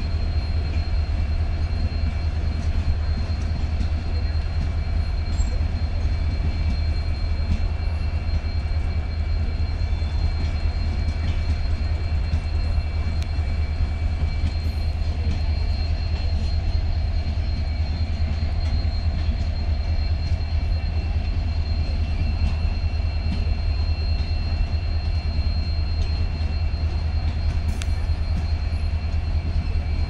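Indian Railways passenger coaches rolling past over the tracks: a steady low rumble of wheels on rail with a thin, steady high whine over it.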